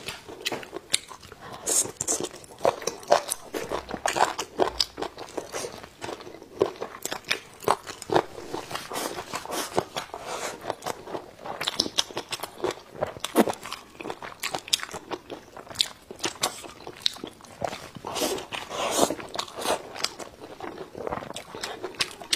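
Close-miked eating: wet, irregular chewing with lip smacks and sharp little mouth clicks as a person bites and chews soft, greasy braised pork and pig intestines.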